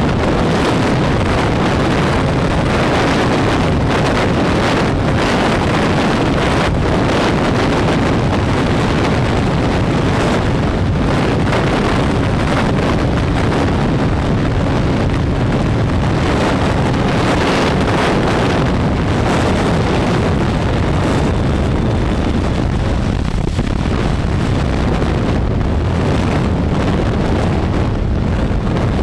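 Honda CBR1000RR inline-four sportbike ridden at road speed: steady wind noise buffeting the onboard microphone, with the engine running underneath it.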